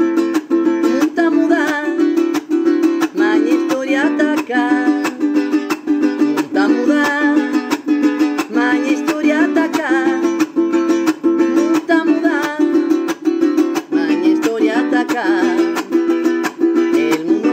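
Ukulele strummed in a quick, steady rhythm, its chords ringing continuously.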